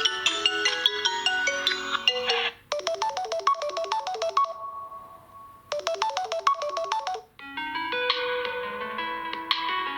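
Samsung Galaxy Note10 Lite stock ringtones played one after another. One ringtone cuts off about two and a half seconds in, a short melody follows and plays twice, and another ringtone starts near the end.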